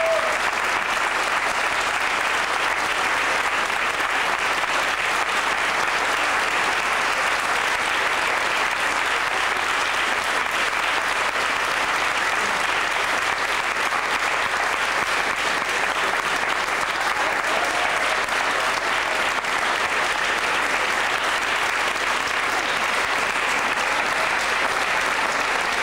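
Audience applauding steadily, a dense even clapping that goes on throughout.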